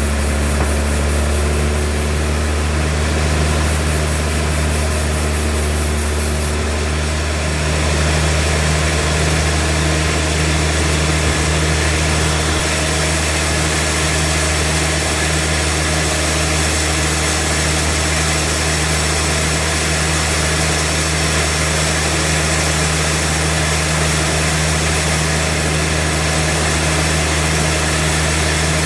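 Sawmill machine running steadily with a low, constant engine hum. About seven seconds in, the sound turns harsher and hissier and then stays even.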